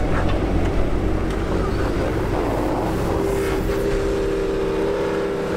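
Off-road SUV engines running as the vehicles crawl slowly up a rocky trail, with a steady engine hum that becomes clearer about three and a half seconds in.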